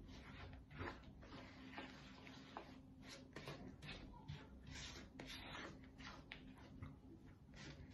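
Silicone spatula stirring and scraping a crumbly flour-and-milk dough mix in a wooden bowl: soft, irregular scraping strokes, two to three a second.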